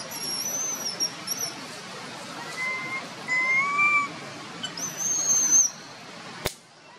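Baby long-tailed macaque making thin, whistle-like crying calls: a few short rising whimpers and a couple of higher squeals, infant distress calls. A sharp click comes near the end.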